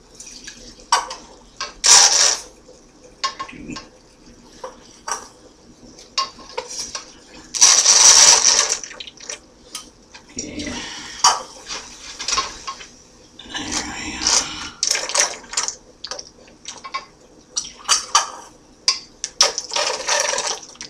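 A duct-taped grease baster sucking grease out of a cast iron skillet and squirting it into a cup, with repeated clinks and taps as the baster knocks against the pan and the cup. There is a longer rush of noise about eight seconds in.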